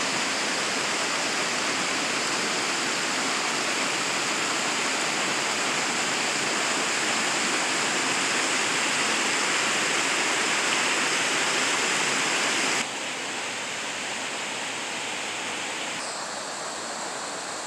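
Mountain creek rushing over rocks and small rapids: a steady hiss of running water that drops a little in level about thirteen seconds in.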